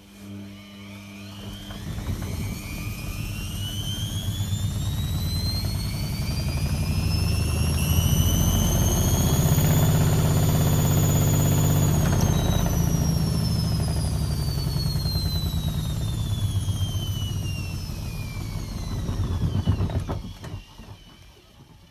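Logik L612WM16 washing machine's drum motor spinning up, holding at top speed and spinning back down, as in a spin test in service mode. After a brief steady hum, the motor whine rises over several seconds, holds high for about four seconds with a heavy low rumble from the drum, then falls away slowly and stops near the end.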